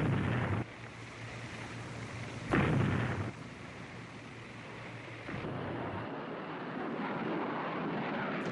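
Two heavy blasts from a warship's guns firing, about two and a half seconds apart, each dying away within about half a second. A steady rushing noise takes over about five seconds in.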